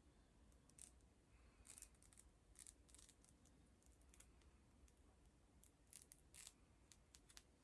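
Scissors faintly snipping through wig lace, a series of short, irregularly spaced cuts.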